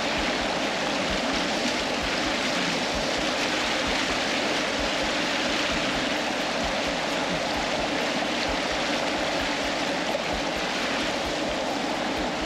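Muddy river water rushing and churning fast over rock ledges close to the microphone: a steady, even rush of water.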